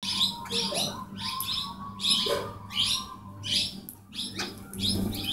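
Plum-headed parakeets calling: a run of short, high, sharp calls, several a second, with brief pauses between clusters.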